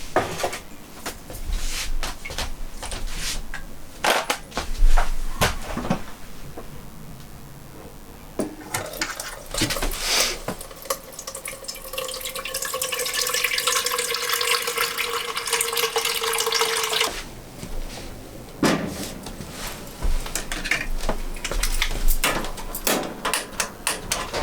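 Kitchen work sounds: dishes and utensils knocking and clinking, with water running from a tap for about six seconds in the middle before it is shut off suddenly.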